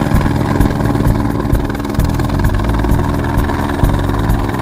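Helicopter coming in close to land, its rotor and turbine engine running loudly and steadily.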